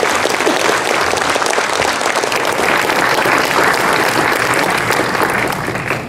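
Audience applauding: steady clapping from many hands, which stops shortly after the end.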